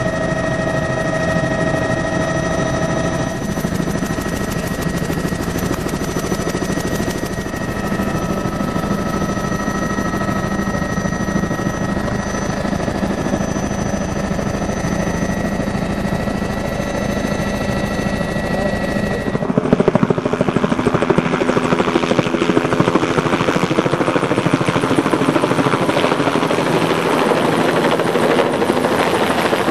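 Helicopter in flight. For about the first two-thirds, a steady engine whine and hum is heard from inside the cabin. After a sudden change, the louder rotor noise comes from below as it flies overhead with a slung load.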